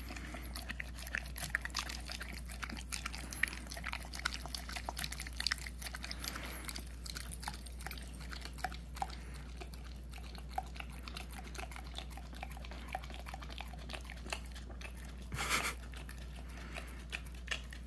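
Young boxer licking and smacking sticky peanut butter off a paper plate: a continuous run of quick, wet tongue-and-lip clicks, with one brief louder rush of noise about fifteen seconds in.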